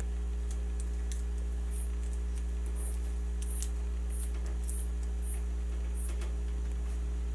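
Steady low electrical hum, with a scattering of faint, short crinkles from fingers handling and pressing small paper packets onto a wooden frame.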